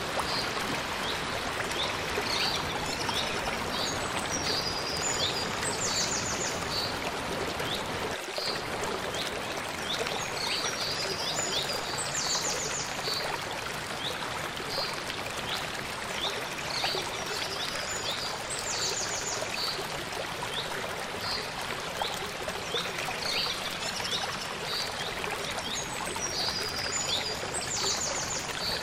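Small mountain stream running steadily over rocks, with high bird chirps and short rapid trills coming in groups every few seconds.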